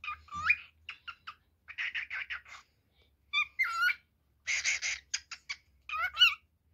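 Male cockatiel calling for its mate, a fast string of short whistles and harsh chattering chirps. A rising whistle opens it, rougher chatter comes about two seconds in and again about four and a half seconds in, and the loudest whistles come near the end.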